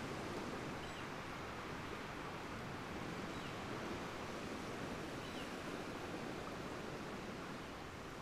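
Steady outdoor ambience: an even, low rushing noise with no distinct events, and a few faint high chirps every couple of seconds.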